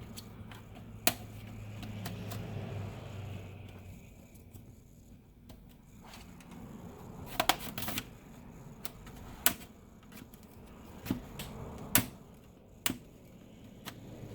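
Plastic case of an HP Stream laptop being pried open, its clips clicking and snapping loose. The clicks are scattered and sharp, with a quick cluster of them about halfway through.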